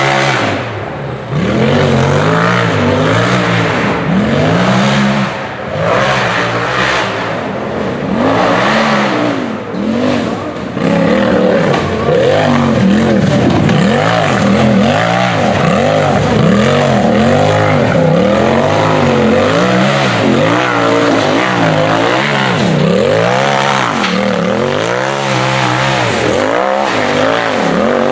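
UTV race buggy engine revving hard, its pitch rising and falling over and over as the throttle is worked, about once a second in the second half.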